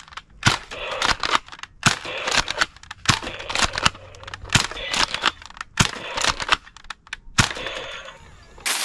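Nerf Elite 2.0 Commander drum blaster being primed and fired again and again, a string of sharp clicks and pops less than a second apart, with small plastic targets clattering as they are knocked down. A louder burst of noise comes right at the end.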